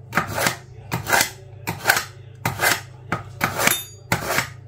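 Kitchen knife being sharpened on a knife sharpener: a regular series of short metal-on-metal scraping strokes, about one every two-thirds of a second.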